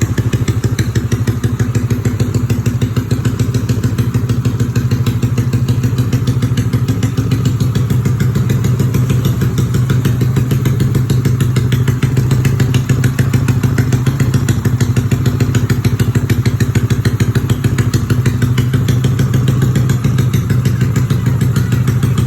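Yamaha Xeon RC scooter's single-cylinder engine, bored up to 155cc, running steadily at idle with an even pulse and no revving.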